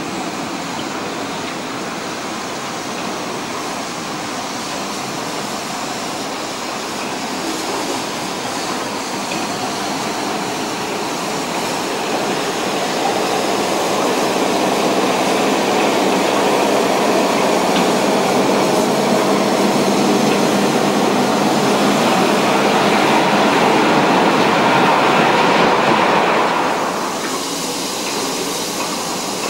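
Deutsche Reichsbahn class 50.35 steam locomotive 50 3646-2 running in slowly with a freight train: a steady rumble of engine and wheels that grows louder as it comes near, then drops off sharply near the end.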